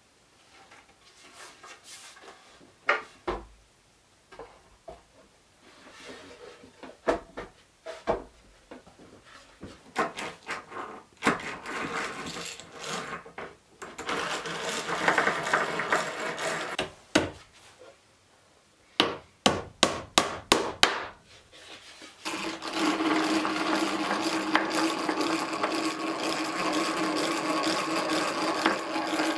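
Wooden knocks as a pine board is handled and set onto a wooden box, then a hand-cranked drill boring into the pine top in long stretches of steady whirring and grinding. A quick run of sharp knocks comes about two-thirds of the way through.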